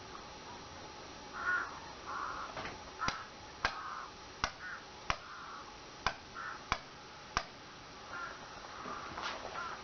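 Short, harsh bird calls repeating every second or two, with a run of about seven sharp ticks or taps in the middle, spaced under a second apart.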